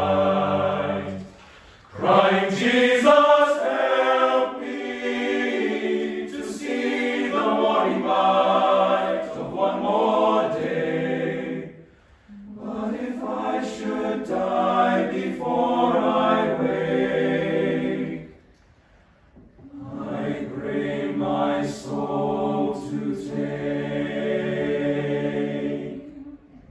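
Teenage boys' choir singing unaccompanied in harmony, in phrases broken by short pauses about two seconds in, near twelve seconds and around nineteen seconds.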